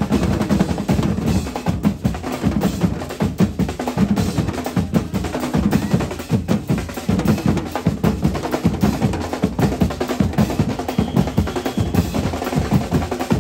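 Street percussion band playing a dense, driving rhythm on large bass drums and snare drums, with rolls on the snares.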